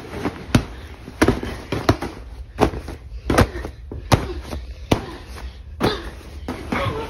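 A child wrestling a shiny vinyl beanbag, hands and body smacking and thumping on its cover, about one sharp smack every three quarters of a second.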